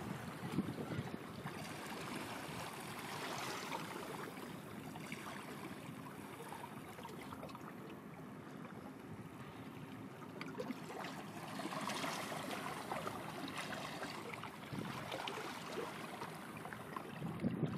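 Water washing and lapping in a steady rushing noise that swells now and then, with no clear engine tone.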